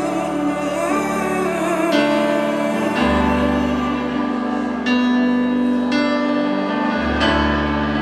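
Piano playing slow, sustained chords, with a new chord struck every one to two seconds and left to ring.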